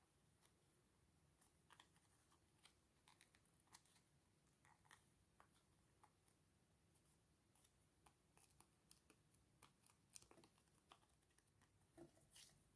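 Near silence, with faint scattered small clicks and rustles of paper and craft pieces being handled, a few more of them near the end.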